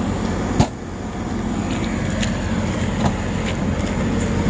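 A steady low engine hum. A sharp latch click comes about half a second in, with a few lighter clicks after, as an exterior storage compartment door on the vehicle's side is unlatched and opened.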